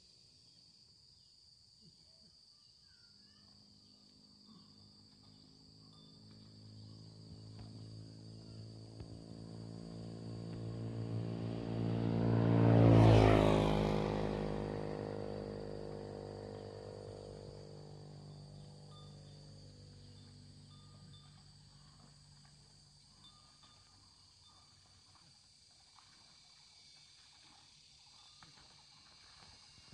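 A motor vehicle passing by on the road: its engine grows louder for several seconds, is loudest about 13 seconds in, then drops in pitch and fades away. A steady high-pitched insect buzz runs underneath.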